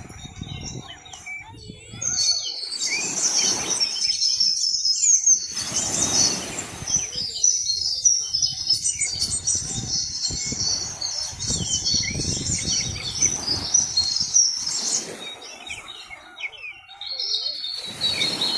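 Many small birds chirping busily together in a dense, overlapping chatter of short high notes, thinning out near the end. Several swells of rushing noise come and go underneath.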